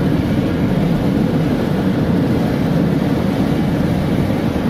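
Steady road noise of a moving car heard from inside the cabin, an even low rumble of tyres and engine.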